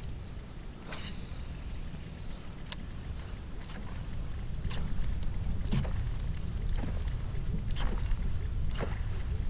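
A canoe on the water: irregular short splashes and knocks every second or two over a steady low rumble.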